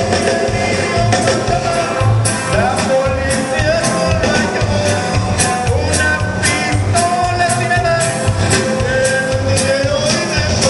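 Live norteña band music for dancing: a singer over bass and drums keeping a steady beat.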